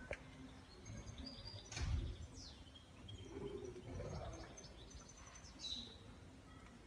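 Faint street ambience with small birds chirping in short high calls and falling glides, and a soft thud just before two seconds in.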